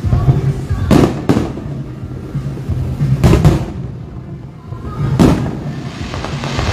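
Aerial fireworks bursting: about five sharp bangs, mostly in pairs roughly two seconds apart, over music with a steady low bass.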